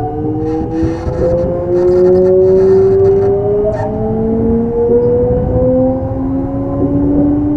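Kintetsu 3200 series electric train's early Mitsubishi GTO-VVVF inverter whining as the train accelerates: a cluster of tones rising steadily in pitch, some dropping back and climbing again, over the rumble of the running gear. A few short bursts of hiss come in the first four seconds.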